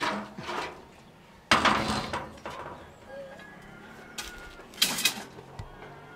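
Metal clanking and scraping: a metal rod knocking against metal in a few sharp clanks, the loudest about a second and a half in.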